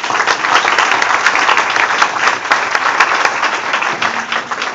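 Audience applauding, many hands clapping steadily, thinning near the end.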